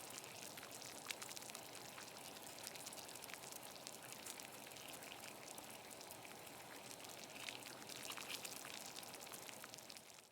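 Water at a rolling boil in a pot on a gas stove: a steady bubbling dotted with many small pops, cutting off abruptly at the end.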